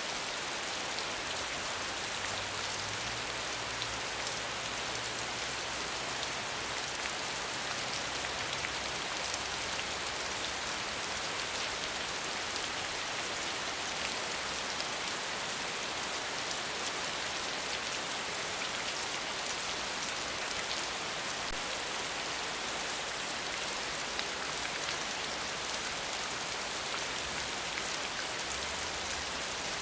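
Steady rain falling: an even hiss of many small drops striking a surface, with fine individual drop ticks throughout.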